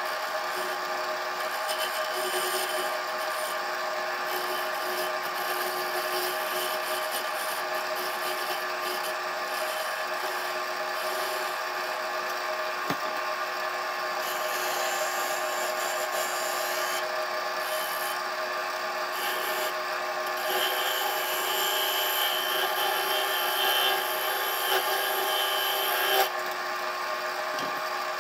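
Wood lathe running with a steady motor whine while the spinning spalted cherry goblet stem is rubbed by hand, giving a dry rubbing hiss. The rubbing grows louder in the last third and stops abruptly about two seconds before the end, leaving the lathe running.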